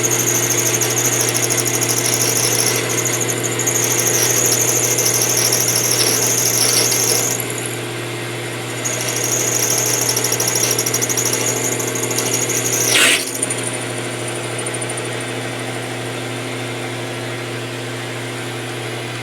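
King Industrial 10x22 metal lathe cutting a steel knob, the tool squealing high-pitched against the spinning workpiece in two stretches over the steady hum of the lathe. The squeal breaks off about seven seconds in, returns, and ends with a brief falling screech about thirteen seconds in. After that only the lathe's steady running hum remains.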